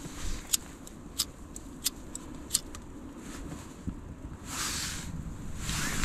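Backpacking gas canister stove being set up and lit: a series of sharp clicks about every two-thirds of a second, then brief rushes of hiss near the end.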